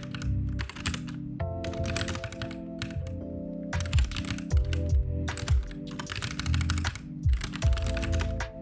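Computer keyboard typing in quick bursts of keystrokes with short pauses between them, over lofi background music with sustained notes and a low beat.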